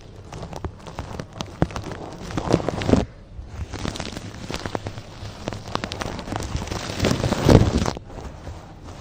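ASMR trigger sounds: dense, crackly scratching with many small clicks, swelling louder about two and a half seconds in and again around seven seconds, each swell breaking off briefly.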